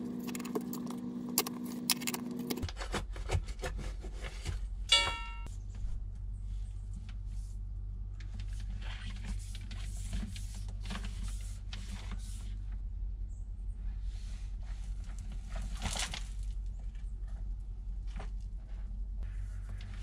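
Digging and handling work in a soil trench: repeated scraping and metallic clinking of a shovel in dirt and of pipe and cable being moved, with a brief rising squeak about five seconds in. A steady low hum runs underneath from a few seconds in.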